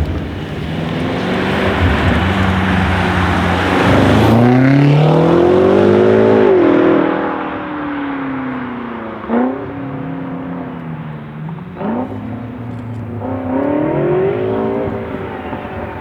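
BMW M5 F90 Competition's stage 2 tuned twin-turbo V8 (about 750 hp) revving and accelerating. A loud steady run gives way to the engine climbing and falling in pitch several times, with two sharp exhaust pops in the middle.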